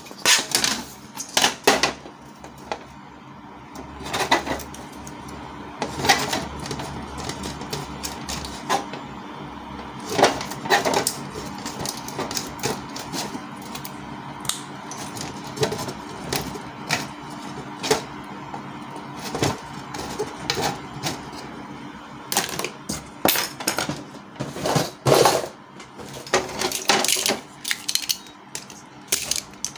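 Pointed scissors snipping and scraping at a printer's plastic casing to enlarge a hole: irregular sharp clicks and crunches, some much louder than others, with short pauses between bursts.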